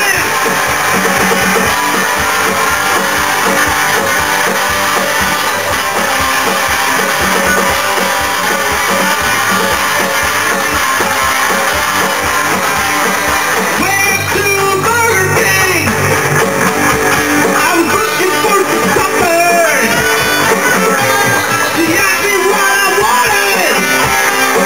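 Electric guitars playing loud rock music, strummed through an amp.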